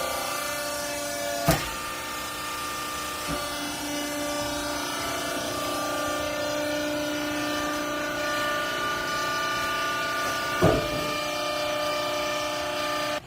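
Hydraulic textile baler running, its pump and motor giving a steady whine of several tones, with two sharp clanks, about a second and a half in and near the end.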